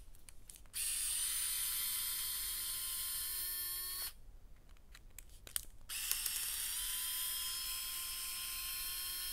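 Cordless electric screwdriver running in two spells of about three seconds each, backing the screws out of an RC crawler's gearbox cover plate. Its whine rises briefly as it spins up, then holds a steady pitch.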